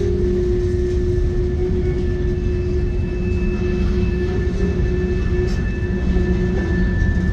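Freight train's covered hopper cars rolling past: a steady, heavy rumble of steel wheels on the rails, with a steady whining tone running through it.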